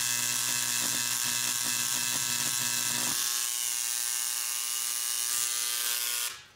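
A Dremel electric engraver buzzes steadily as its tip scratches a reference mark into the metal turbo housing. Its tone shifts slightly about three seconds in, and it stops just before the end.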